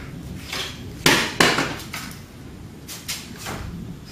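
A Fluke 28-II multimeter knocked off a bench hits the concrete floor: two sharp knocks about a second in, a third of a second apart, as it lands and bounces. A few lighter knocks follow as it is handled.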